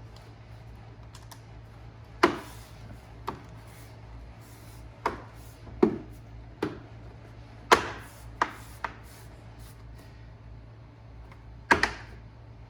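Plastic license plate trim piece being fitted to its tabs: about ten sharp, irregular clicks and knocks, two close together near the end.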